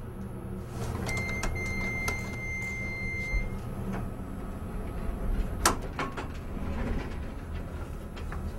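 Elevator car: a steady low hum, an electronic beep held for about two seconds, then the doors sliding, with a sharp click about halfway through.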